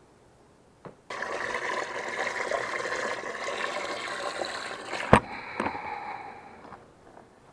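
Water splashing and running in a bass boat's open livewell, starting suddenly just after a click about a second in. A sharp knock comes about five seconds in, after which the water sound is duller and fades out near the end.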